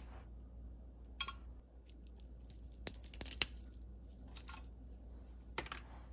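Fresh chwinamul (aster greens) being trimmed by hand: tough stems snapped off and leaves rustled, giving a string of sharp snaps with a busier crackling cluster about three seconds in.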